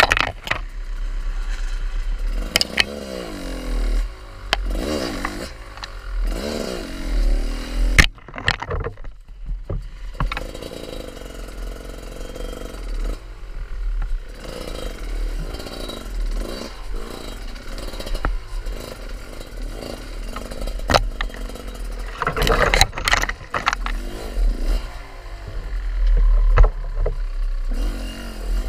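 Off-road motorcycle engine revving up and down as it is ridden, with a heavy low rumble of wind on the microphone and a few sharp knocks.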